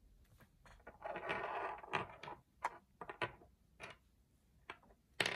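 Small plastic counting bears being slid and set down on a hard tabletop: a short scraping sound about a second in, then a series of light plastic clicks and taps.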